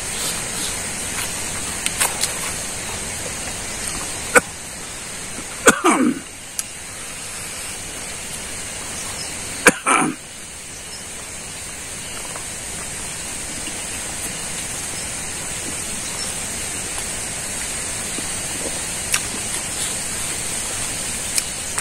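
Mouth sounds of a man eating rice and meat by hand: chewing and lip-smacking, with a short throaty sound about six seconds in and another, starting with a sharp click, near ten seconds, over a steady background hiss.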